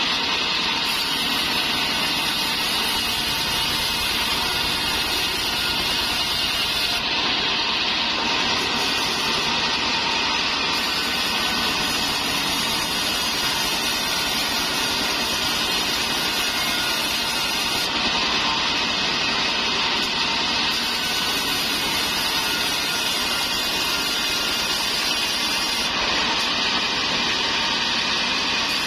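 Large engine-driven wheel bandsaw running steadily while trembesi (rain tree) planks are ripped through the blade into rafters: a continuous loud mechanical din with a high rushing noise that does not let up.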